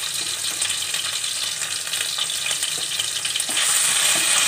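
Garlic, ginger and green chilli paste sizzling in hot oil in a pan. The sizzle grows louder about three and a half seconds in as a spatula stirs the paste.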